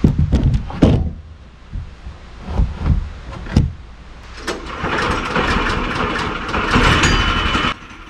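Sawn wooden boards knocking and clunking as they are lifted and flopped over, about six separate knocks in the first half. A steady noisy whirr then runs for about three seconds and cuts off suddenly near the end.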